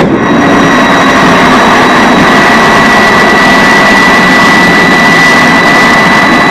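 Freewing T-33 electric ducted-fan RC model jet in flight: a loud, steady jet-like rush with a high whine held at one pitch.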